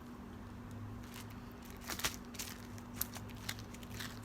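Faint scattered clicks and squishes of jiggly homemade glue slime being handled and squeezed, over a steady low hum.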